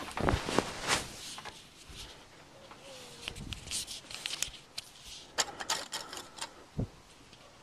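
Irregular knocks and clicks: a few loud knocks in the first second, then a run of rapid clicking and tapping from about three seconds in.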